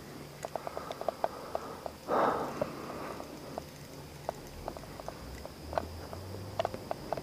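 Scattered light ticks and taps at an uneven pace, with a short breathy rush about two seconds in, over a steady high trill of night insects.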